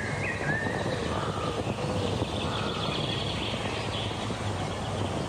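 Wild animal calls: a few short whistled notes dipping in pitch in the first second and a half, then a buzzing, rattling trill from about two and a half to four and a half seconds in. Steady low background noise runs underneath.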